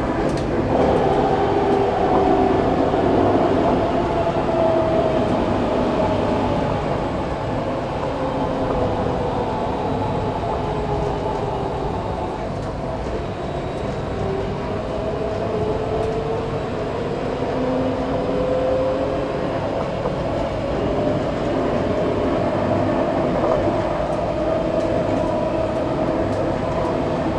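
Inside an Alstom Citadis 302 tram under way: a steady rumble of the car running on the rails, with a motor whine that falls in pitch through the first half and rises again in the second half as the tram slows and picks up speed.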